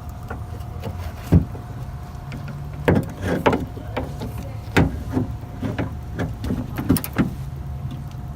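Scattered metallic clicks and knocks of a hand tool working inside a car door's sheet-metal shell, about eight in all, the sharpest about a second and a half in, over a steady low hum.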